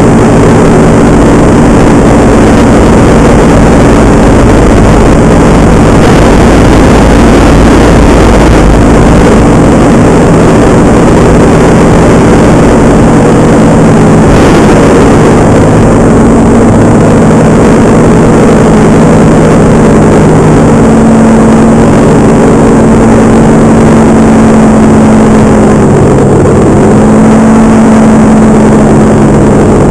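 Paramotor engine and propeller running steadily at high level, its pitch shifting slightly about two-thirds of the way through and dipping briefly near the end, with wind rumbling on the microphone.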